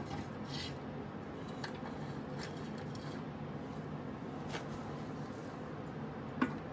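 Light clicks and taps of steel suspension-arm pieces being handled and fitted against the frame and ball joint, over a steady low hum. The sharpest click comes near the end.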